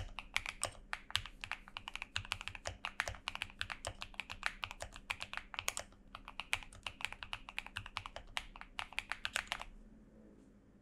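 Fast, steady typing on a mechanical keyboard with KTT Strawberry linear switches, lubed with Krytox 205g0 and filmed: a rapid run of key clacks that stops shortly before the end.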